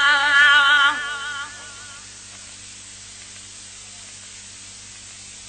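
A man singing a Sindhi devotional naat holds a long wavering note that ends about a second in and fades away. After it comes a steady faint hiss with a low hum.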